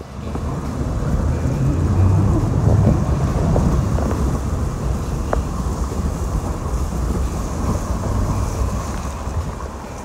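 Fast-flowing river water rushing over rocks, with a deep rumble of wind buffeting the microphone; the noise comes in suddenly at the start and is loudest a couple of seconds in.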